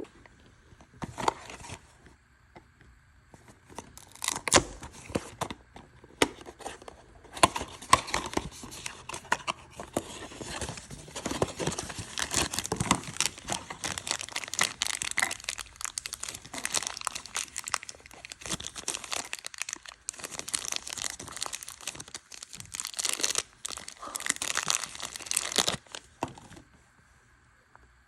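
Blind-box packaging of a mystery mini figure being torn open and crinkled by hand: continuous crackling and rustling with a few sharp tearing snaps in the first several seconds, stopping near the end.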